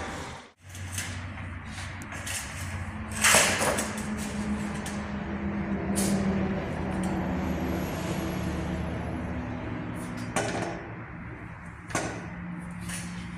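A long wooden plank scraping and knocking as it is lifted and laid across metal trestles, the loudest scrape a few seconds in and two sharper knocks near the end, over a steady low hum.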